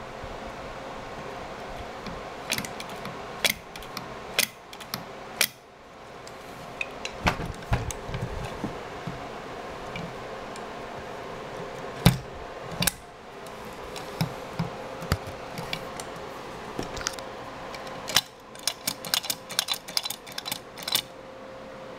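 Motorcraft 2150 two-barrel carburetor handled and turned over by hand, its metal parts giving sharp clicks and knocks over a steady background hum. The clicks are scattered, with one loud knock about halfway and a quick run of clicks near the end.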